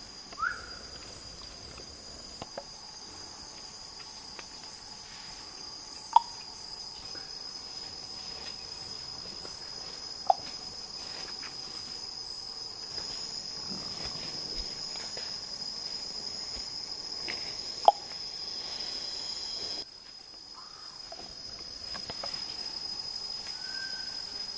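Steady, high-pitched drone of rainforest insects, with four brief, sharp, loud sounds spread through it.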